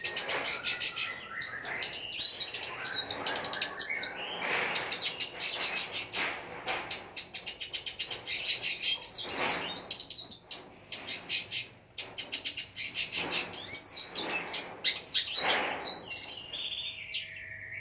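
Long-tailed shrike (pentet) singing a fast, nearly unbroken chatter of short high notes, packed with mimicked phrases, with a brief break about twelve seconds in.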